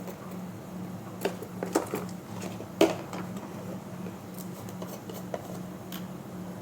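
Kitchen utensils and spice containers clinking and tapping against a dish as spices are added, a few scattered knocks with the loudest about three seconds in, over a steady low hum.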